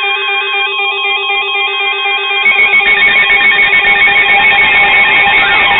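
Several weather alert radios sounding their electronic alarms together, set off by the incoming warning's data burst: loud, fast-warbling beeping tones over steady tones. More alarm sound joins about two and a half seconds in, and rising and falling siren-like sweeps start near the end.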